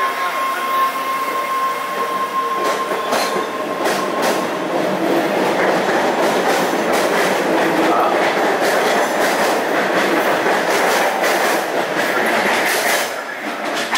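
MBTA Red Line subway train, Bombardier 01800-series cars, pulling out of the station. A steady tone fades out after the first few seconds while the wheels begin clicking over the rail joints. The running noise builds as the train gathers speed, then falls away near the end as the last car passes.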